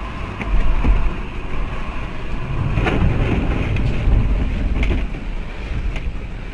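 Low, steady rumble of a moving vehicle, with a few brief knocks and a louder stretch about halfway through.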